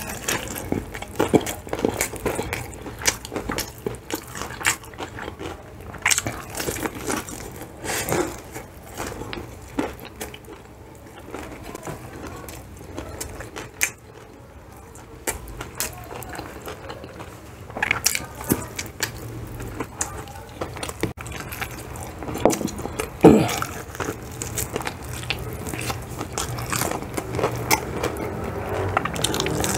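A person biting and chewing crispy fried chicken, the breading crunching in many sharp crackles. The crunches come thick at first, ease off for a few seconds around the middle, then pick up again.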